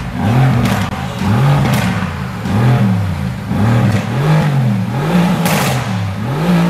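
Mercedes-AMG GT S's 4.0-litre twin-turbo V8 being revved over and over at standstill, about once a second, each rev rising and dropping back. There is a sharp burst of noise a little over five seconds in.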